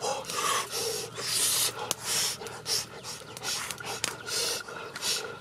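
Heavy rhythmic breathing close to the microphone, a breathy hiss about every half second.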